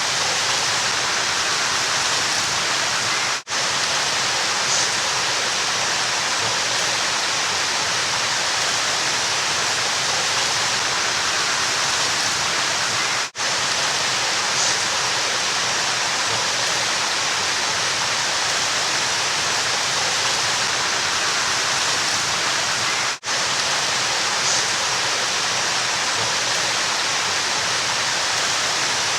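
Steady rushing of a flowing river, an even hiss of water with no let-up. The sound drops out for an instant three times, about every ten seconds, where the recording loops.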